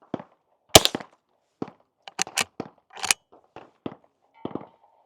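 Gunfire from several guns, about a dozen sharp cracks at uneven intervals, some loud and some fainter. The loudest comes a little under a second in.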